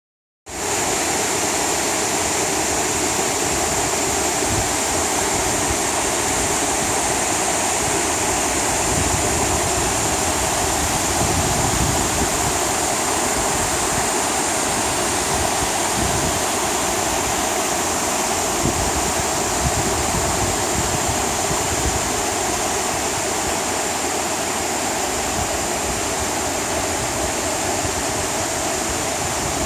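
Waterfall rushing steadily, a continuous wash of falling water.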